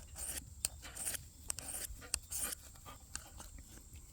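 Steel blade of a Mora Eldris knife, its Scandi-ground bevel held flat, stroked quickly across the coarse side of a diamond sharpening file: a quick series of short, gritty scrapes, about two to three a second.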